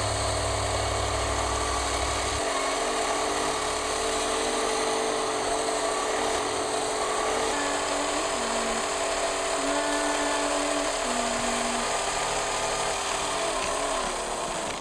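1973 Mattel Vertibird toy helicopter running, its motor and spinning rotor making a steady whir as it hovers on its tether. The pitch shifts a few times as the power is changed.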